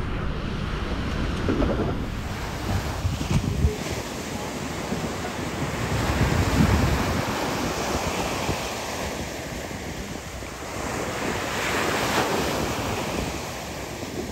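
Surf breaking on a sandy beach, the rush of the waves swelling and easing, with wind rumbling on the microphone.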